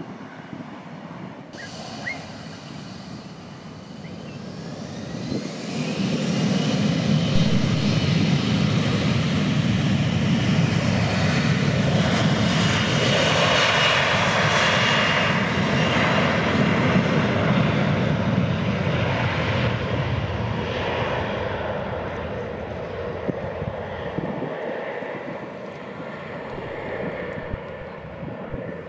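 Embraer E-Jet airliner's turbofan engines running at high power as it rolls past along the runway: a steady roar that swells, holds for about fifteen seconds, then fades as the jet moves away.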